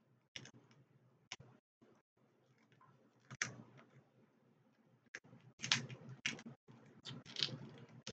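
Faint, scattered sharp clicks and crackles of seafood shells, crab legs among them, being cracked and picked apart by hand. A few isolated cracks at first, then busier crackling from about the middle on.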